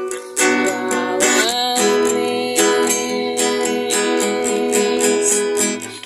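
Acoustic guitar playing a gospel worship song, plucked and strummed chords ringing on, with a short rising glide in pitch about a second and a half in.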